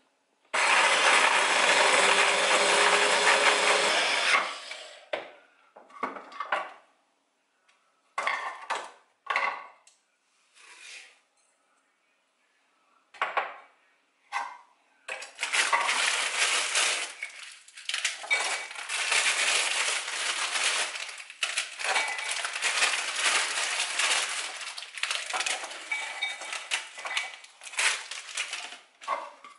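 An electric mini chopper runs for about four seconds, crushing biscuits into crumbs. After scattered knocks, a long stretch of loud clatter and scraping of bowls and utensils fills the second half.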